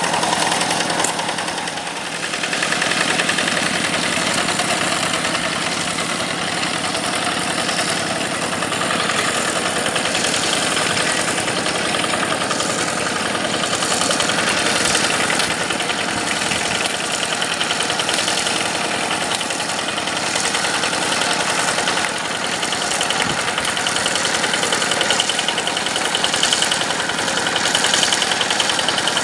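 Rice-field tractor's Yanmar diesel engine running steadily, with a fast, even knocking beat, dipping slightly about two seconds in.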